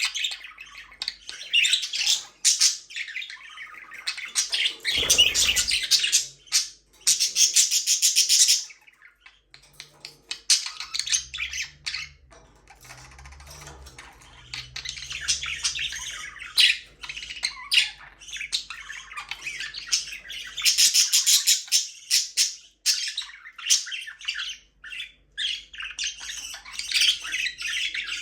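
Budgerigars chirping and chattering in fast bursts of high warbling, with short pauses between bursts. There is a brief low thump about five seconds in.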